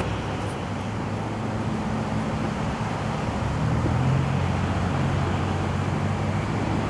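Low, steady rumble of EMD SD70ACe diesel locomotives approaching, a hum that swells a little about four seconds in, over a wash of background noise.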